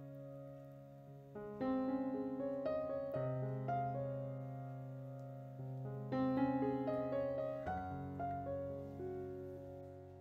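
Background piano music: slow sustained chords and melody, with new chords struck every one to three seconds and each fading away before the next.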